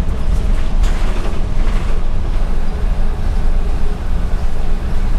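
Cabin noise inside a moving MAN NL243 CNG city bus: a steady low rumble of engine and road, with a short rush of hiss between about one and two seconds in.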